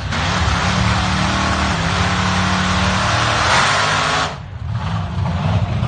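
Drag car's engine at full throttle as the car launches, with tyre smoke pouring off the rear wheels. About four seconds in the sound drops sharply, then builds again a second later.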